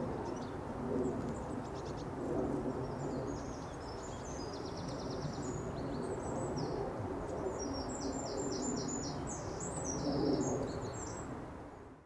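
Small birds calling in quick runs of short, high chirps, in clusters about three seconds in and again from about seven to ten seconds in, over a steady low outdoor rumble. The sound fades out near the end.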